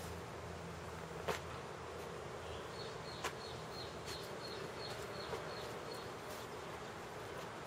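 Woodland ambience: a steady hiss with a run of about ten short high chirps, roughly three a second, for a few seconds in the middle. Two sharp knocks come about a second in and again about two seconds later.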